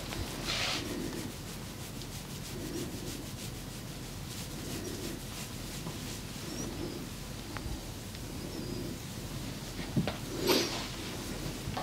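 Hands rubbing over skin in slow, even massage strokes, about one every two seconds. A sharp click about ten seconds in, followed by a brief louder rub.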